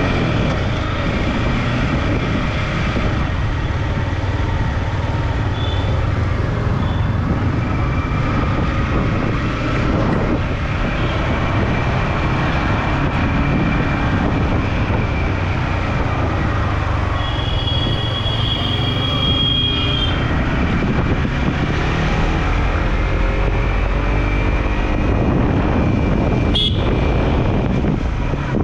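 Motorcycle ride through traffic: steady engine, road and wind noise, with a vehicle horn sounding for a couple of seconds just past halfway and a couple of sharp clicks near the end.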